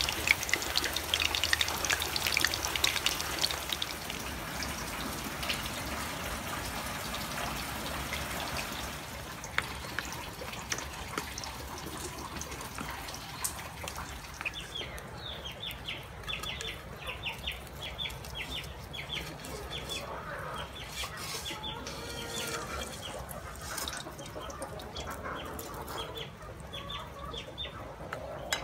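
Battered banana-flower slices frying in hot oil, a dense sizzling crackle that dies down about a third of the way in. From about halfway, chicks peep in a quick run of short, high chirps, each falling in pitch.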